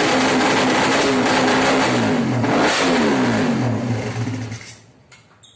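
Racing-tuned Suzuki Satria FU engine, bored out to 200cc, running loudly and being revved up and back down a couple of times, then dying away about four and a half seconds in. A single short click follows near the end.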